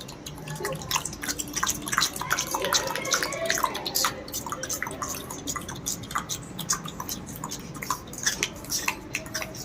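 A group of children imitating sparrows, making many short, overlapping chirps and mouth clicks.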